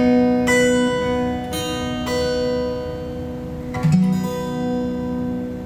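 Background music: a pop song's instrumental passage of guitar chords, with new notes struck every second or so between sung lines.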